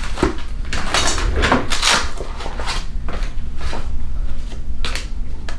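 Objects and test cards being picked up and handled on a countertop: a string of irregular short knocks, clicks and rustles over a low steady hum.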